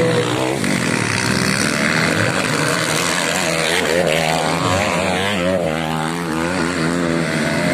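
Several dirt bikes racing on a grasstrack, their engines overlapping and revving up and down as they accelerate and shift.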